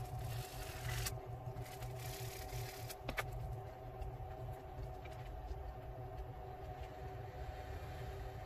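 Steady low hum throughout, with about three seconds of scratchy rubbing near the start as a carved lure part is hand-sanded on a small piece of sandpaper, then a sharp click a little after.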